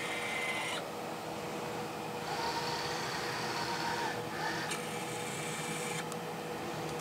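Thermo CRS F3 robotic arm's joint motors whining in short runs as the arm moves, starting and stopping three times and ending in a click about six seconds in, over a steady low electrical hum.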